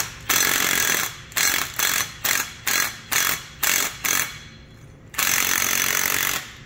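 Cordless power tool spinning a socket to run a nut down a bolt. It runs once for about a second, then in a string of about nine short trigger pulls, then runs again for over a second near the end.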